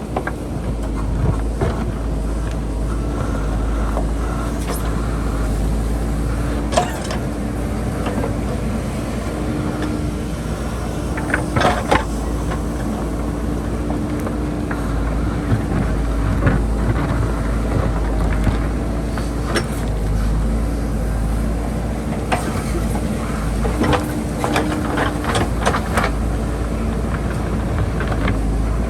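JCB backhoe loader's diesel engine running steadily under load, with occasional sharp knocks and scrapes from the digging.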